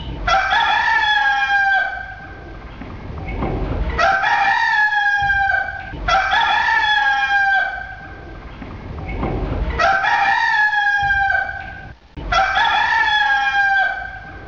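Rooster crowing five times in a row, each crow a long call of about two seconds.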